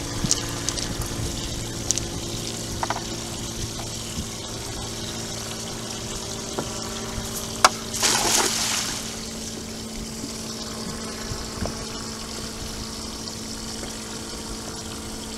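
Cast net landing on the water with a splash lasting about a second, about eight seconds in, over a steady low mechanical hum; a few sharp clicks come before it.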